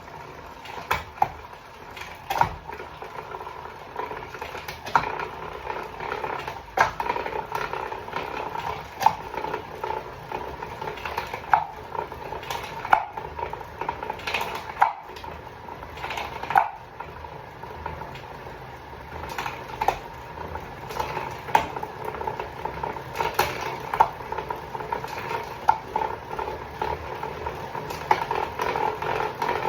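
Bicycle drivetrain (SRAM Rival 12-speed, 10-30 cassette) turning on an Elite Direto XR direct-drive smart trainer, with a steady whirr and a sharp click repeating about every two seconds: the unwanted noise the rider is trying to trace.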